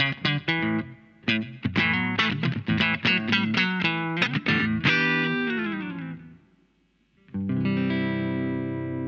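Electric guitar played through a compressor effect. Quick picked notes give way to a note that slides down in pitch and fades out. After a brief gap, a chord is struck and rings on with long, even sustain.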